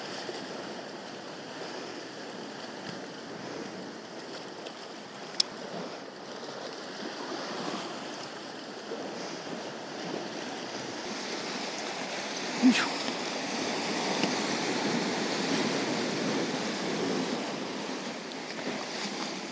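Sea surf washing steadily against the rocks below, with a light wind. Two sharp clicks cut through it, one about five seconds in and a louder one near the middle.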